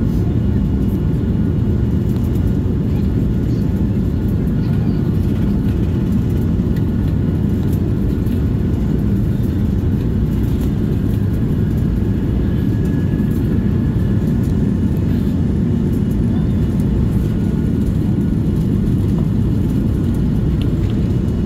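Cabin noise of an Airbus A220-300 on its takeoff roll, heard from a seat at the back: a loud, steady low rumble of its Pratt & Whitney PW1000G-family geared turbofans at takeoff thrust.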